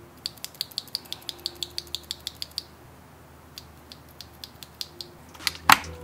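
Mechanical keyboard switch, an Akko Jelly Pink switch, clicking quickly and evenly at about seven clicks a second for a couple of seconds. A few scattered clicks follow, then two louder clicks near the end.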